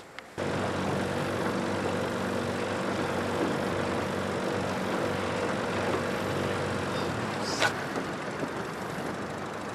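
Evinrude outboard motor running steadily, pushing a small aluminium fishing boat along, starting about half a second in. A single sharp knock sounds near the end.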